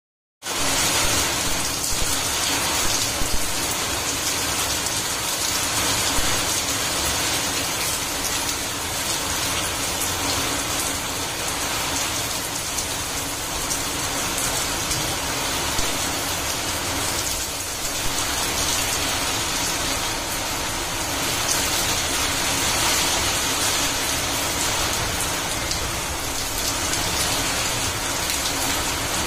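Heavy rain falling on a flat concrete rooftop and splashing into puddles: a steady, dense hiss of drops that cuts in abruptly at the start.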